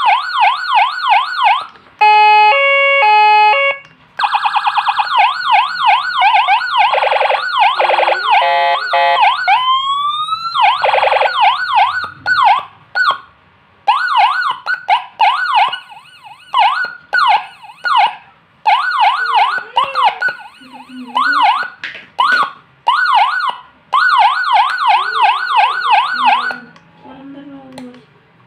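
CJB200HS electronic siren sounding through its speaker, switched between tones: fast repeating up-down yelp sweeps, a stepped two-tone pattern about two seconds in, and a single rising glide about ten seconds in, with brief breaks between modes. It is being test-run after repair.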